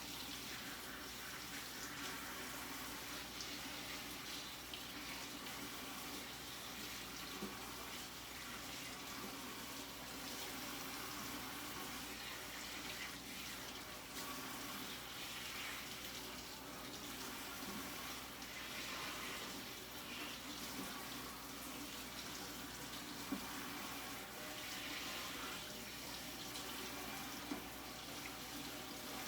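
Kitchen tap running steadily into a sink while bok choy leaves are rinsed under it, with a few light knocks.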